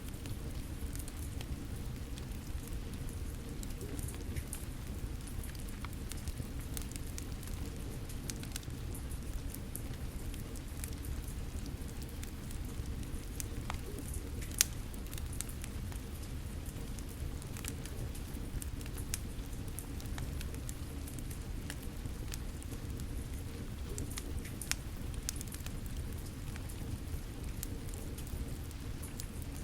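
Wood fire crackling with scattered sharp pops, the loudest about halfway through, over a steady patter of rain.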